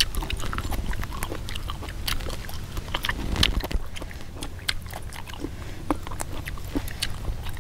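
Irregular crisp snaps and clicks, several a second, of green vegetable stems being broken and leaves stripped by hand, over a low steady rumble.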